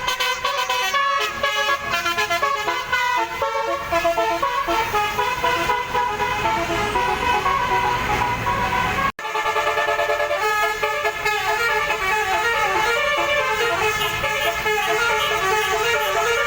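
Multi-trumpet 'basuri' telolet bus horn playing a melody, its steady tones stepping quickly from pitch to pitch. About nine seconds in, the sound drops out for an instant and another horn melody starts.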